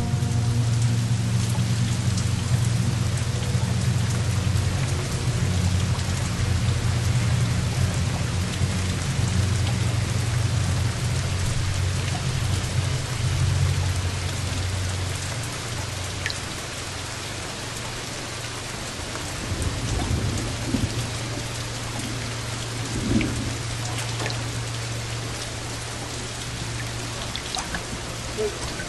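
Steady rushing hiss like heavy rain over a deep low rumble; the rumble thins out about halfway through. A few faint clicks and soft thuds follow in the second half.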